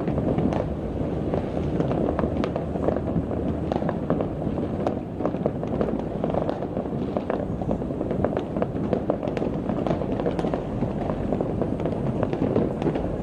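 Many fireworks and firecrackers going off at once across a city: a dense, continuous crackle of small pops and bangs.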